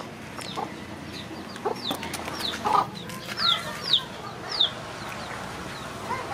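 Chickens calling: short, high peeps that slide downward, repeated about twice a second, with a few lower clucks among them.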